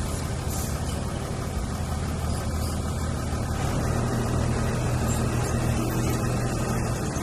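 Heavy diesel engine of construction machinery running steadily, growing louder and slightly higher in pitch about halfway through.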